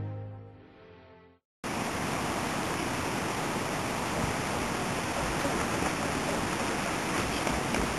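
Music fades out over the first second or so. After a moment of silence, a steady rushing outdoor noise begins and holds at an even level.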